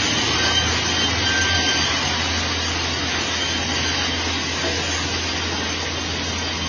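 Industrial vertical band saw ripping a board off a squared timber: a steady sawing noise over a constant low motor hum.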